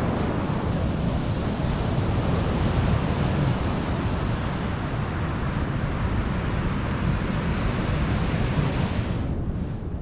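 Ocean surf washing on a sandy beach, mixed with wind rumbling on the microphone; the hiss thins out about nine seconds in.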